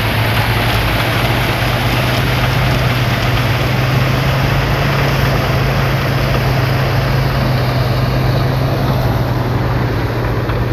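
Truck-mounted rice threshing machine running steadily under load: a constant low engine hum under a dense, harsh threshing rattle. The owner says it sounds as if the machine is breaking down, yet it keeps working.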